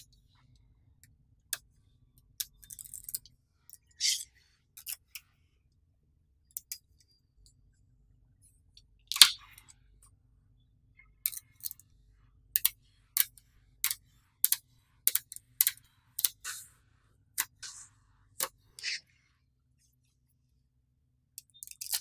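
Small neodymium magnetic balls clicking and snapping together as rows of balls are pressed into place. Sharp, irregular clicks, with the loudest snap about nine seconds in and a run of clicks about two a second in the second half.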